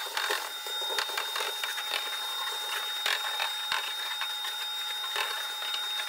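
Crackling and scraping of dirt and debris being cleared by hand off a rusted steel truck-cab floor, with many small clicks and a thin steady high whine throughout.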